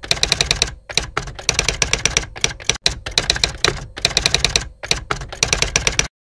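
Typewriter sound effect: fast runs of key clacks in short bursts, one letter at a time as on-screen text is typed out. It stops abruptly just before the end.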